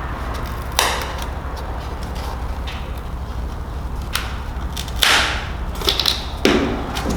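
Several brief swishes and scrapes of hands handling things close to the microphone, the longest and loudest about five seconds in, over a steady low hum.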